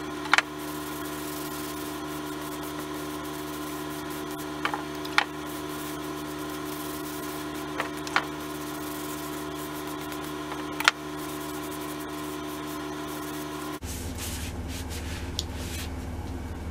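A handful of short, sharp metallic clicks as a tin can of boiled linseed oil is handled and tipped against a rag, over a steady background hum. About three-quarters of the way through, the hum gives way abruptly to a lower, steady rumble.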